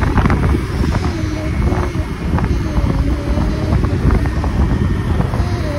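Wind buffeting the phone microphone on a moving motor scooter, over the scooter's running engine. A faint wavering tune comes and goes underneath.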